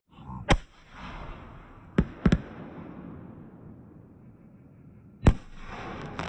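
Aerial fireworks bursting: a sharp bang about half a second in, three more in quick succession around two seconds, and another near the end.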